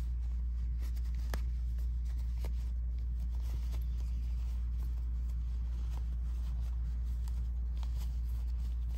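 Fabric rustling and crumpling as a small sewn cotton basket is turned right side out by hand, with faint scattered clicks, over a steady low hum.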